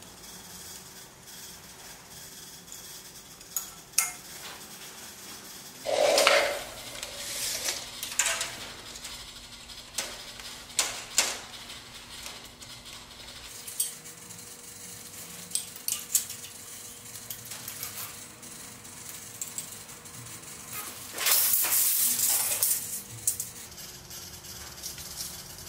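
Handling a steel tape measure and a small screwed-together metal clip: scattered clicks and clinks, with two longer, louder scraping bursts, one about six seconds in and one about twenty-one seconds in.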